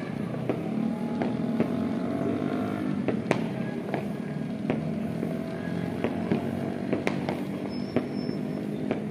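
Distant fireworks going off, sharp pops and bangs at irregular intervals, more than one a second, over a steady droning hum.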